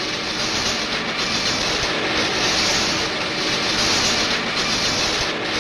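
Column-mounted electric rotary rock drill running, boring into bituminous shale: a steady, dense grinding noise that swells and fades slightly about once a second.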